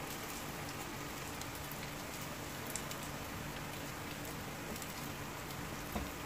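Hot oil sizzling and crackling steadily around cheese-filled bread slices frying in a pan on low heat, with a couple of light clicks from a turner against the pan.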